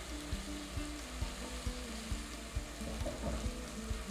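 Onion, garlic and green seasoning frying in olive oil in a pot, a steady sizzle, while a plastic slotted spatula stirs them.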